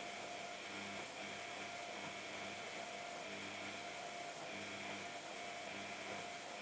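Samsung washing machine running, a steady machine hum and whine whose tones fade and return about once a second as the drum turns.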